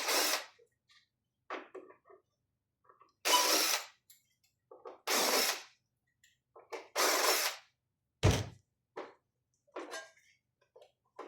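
The battery being removed from a Mindray SV300 ventilator, with handling noise of its housing: a series of short scraping, rattling bursts about every one to two seconds and a dull thunk about eight seconds in.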